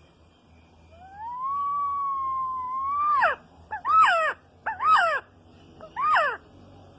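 Resplendent quetzal calling. One long whistle rises and then holds level, followed by four short calls, each sweeping up and then down in pitch.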